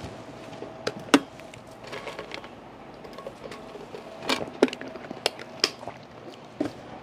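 Scattered sharp clicks and knocks of an insulated drinking tumbler and a tablet being handled on a wooden pulpit, the loudest about a second in and a cluster more a few seconds later.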